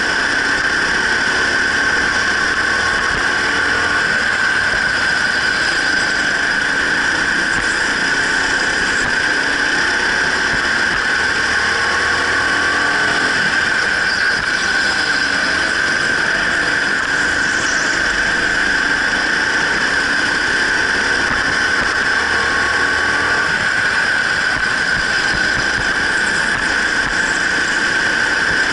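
Racing go-kart running at speed through lap after lap: a loud, steady high-pitched whine that barely changes.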